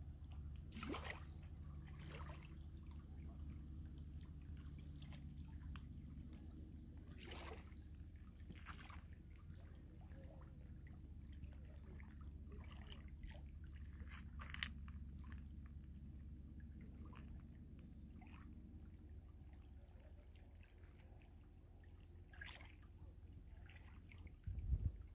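Small waves lapping and trickling among granite boulders at a lake's edge, with a few small splashes, over a steady low rumble that swells near the end.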